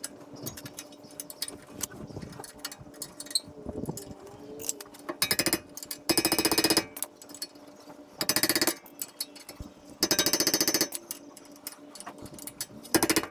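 A half-inch impact wrench hammering in four short bursts, each under a second, driving bolts home, with small tool clicks and clinks between the bursts.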